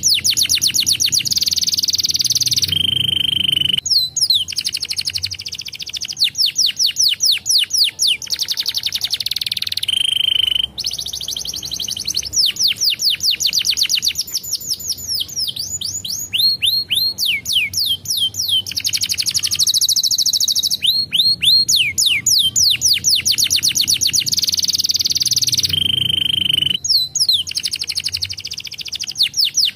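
Domestic canary singing a long, unbroken song: fast rolls of repeated falling notes, dense trills and short held whistles, switching from one phrase to the next every few seconds.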